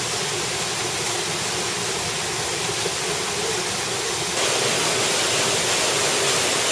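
Waterfall pouring over rock, a steady rush of water that starts abruptly and gets a little louder about four and a half seconds in.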